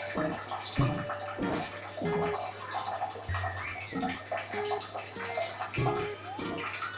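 Water splashing and spattering irregularly as an Alexandrine parakeet bathes itself.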